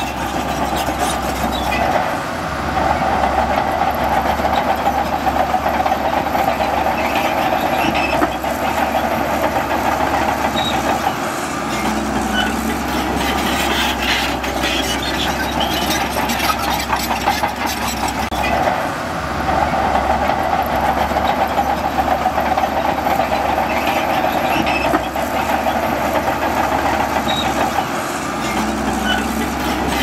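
Shantui DH17C2 crawler bulldozer working, its diesel engine running hard in two long pushes of about eight seconds each. Between the pushes comes a stretch of lighter running full of clanking.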